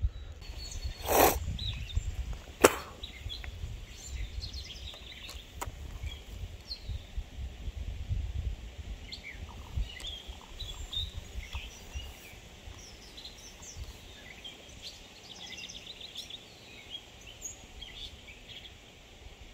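Small birds chirping repeatedly. About a second in there is a brief whoosh, and a sharp click follows near three seconds.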